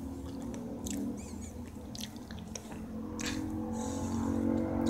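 A person chewing cereal close to the microphone, with a few crunching bites.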